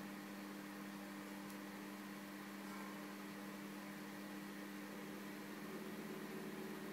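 Steady low electrical hum over an even faint hiss: background noise from the room or recording device.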